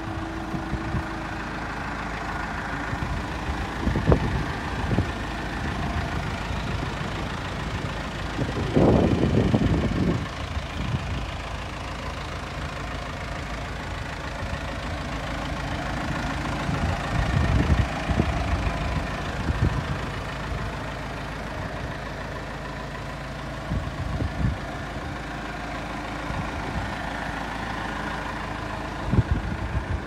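Backhoe loader's diesel engine idling steadily. Several louder noisy bursts pass over it, the longest about nine seconds in.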